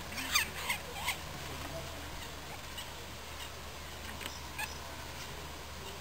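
A woodpecker giving three quick high calls, each sliding down in pitch, in the first second, followed by a few faint sharp clicks.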